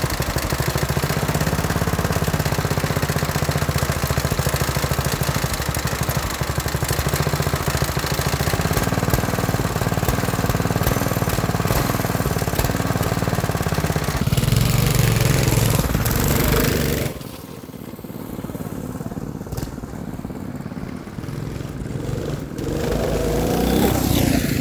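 The two small gas engines of a twin-engine go-kart, just pull-started, running at a steady pulsing idle, then revved up for a few seconds. Near the end the engines are heard from further off as the kart drives up, getting louder as it comes closer.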